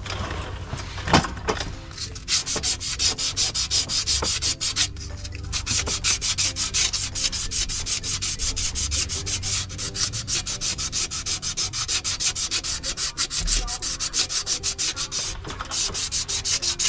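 Sandpaper rubbed by hand in quick back-and-forth strokes over the friction face of a 2007 Ford Focus flywheel, scuffing and cleaning the surface so the flywheel, judged free of spots, can be reused under the new clutch. The strokes start about two seconds in, after a single knock, and pause briefly twice.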